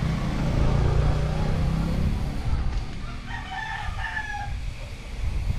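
A rooster crowing once, a call of about a second a little past the middle, over steady wind rumble on a helmet-mounted camera.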